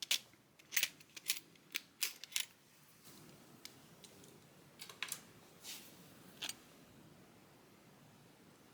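Close-miked ear cleaning: sharp clicks and short scrapes from a cleaning tool working at the ear. There is a quick run of them over the first two seconds or so, then a few more after a pause.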